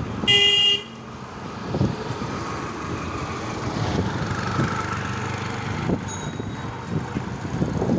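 A vehicle horn toots once, briefly, about half a second in, the loudest sound here, followed by steady road noise from the street.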